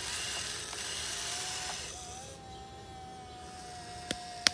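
1580 RC excavator's small electric motors whining steadily at one pitch as the machine works, with a hiss that drops away about two seconds in. Two sharp clicks near the end, the second one loud.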